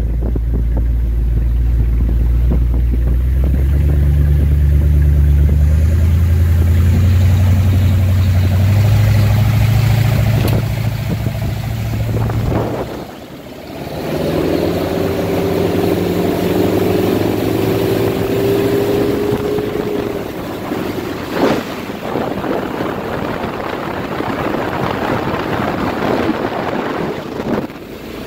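Cobalt boat's 454 big-block V8 accelerating, its engine note climbing in steps over the first dozen seconds. After a brief dip about halfway through, it runs at speed under a rush of water and wind, with a few sharp thumps.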